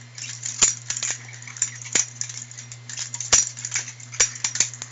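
Butterfly knife (balisong) being spun through the windmill trick: rapid light metallic clicks and rattles of the handles swinging around the blade, with a sharper clack about once a second as a handle closes against it.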